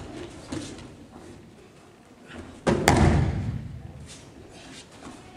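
A body hitting the mat as an aikido partner is thrown: a loud thud about two and a half seconds in, with a sharp slap right after it, echoing in a large hall. A couple of lighter knocks come at the start.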